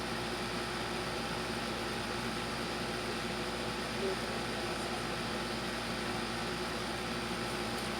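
Steady background hum and hiss, with a brief faint voice about four seconds in.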